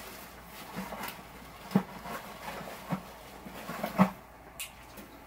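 Faint rummaging with a few sharp clicks and knocks about a second apart, the loudest about four seconds in: small parts being dug back out of a garbage can.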